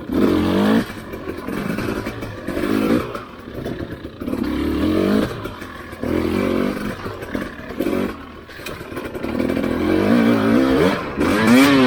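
Husqvarna TE300i two-stroke enduro motorcycle engine revving in repeated bursts on and off the throttle, its pitch rising and falling, with a sharper rising surge near the end.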